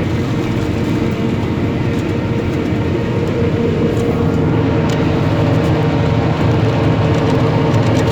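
Claas Jaguar 960 self-propelled forage harvester running steadily as it chops maize, a loud drone with a steady whine.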